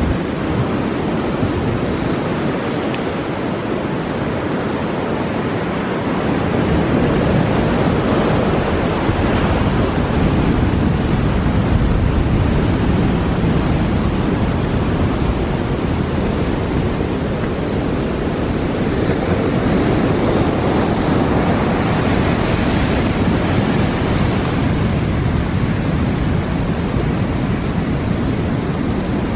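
Ocean surf breaking and washing up a sand beach, a continuous rushing wash that swells and eases, with wind buffeting the microphone.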